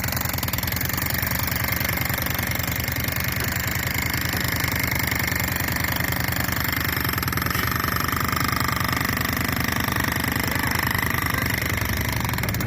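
Percussive drilling machine hammering steadily in rapid, even strokes.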